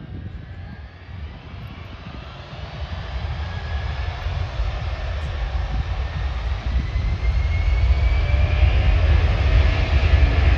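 Boeing C-17 Globemaster III's Pratt & Whitney F117-PW-100 turbofan jet engines running, growing steadily louder. A deep rumble is joined by a whine that rises in pitch through the second half.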